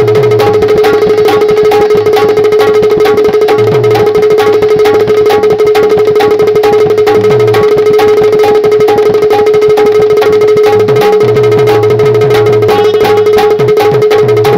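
Instrumental interlude of Bundeli rai folk music: a fast, even hand-drum rhythm over a steady held drone note and a repeating bass figure, with no singing.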